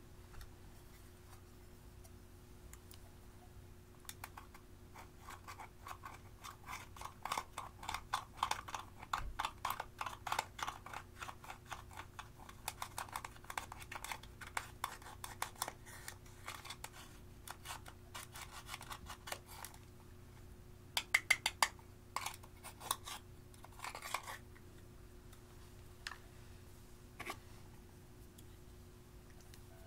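A small metal tool scraping and breaking up pressed eyeshadow powder in its compact pan: a rapid run of dry, scratchy clicks, densest through the middle, with a few louder clicks later on.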